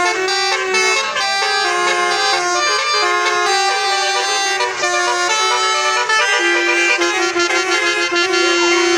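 Bus 'basuri' musical air horn (telolet horn) playing a tune in quick stepped notes, ending on one long held note for the last couple of seconds.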